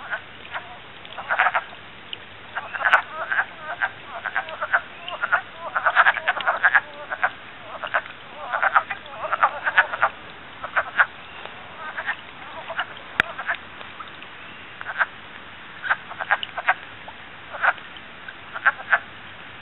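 A chorus of wood frogs calling at their breeding pool: many short croaking calls in irregular bunches that overlap. The chorus thins out to scattered calls from about halfway through.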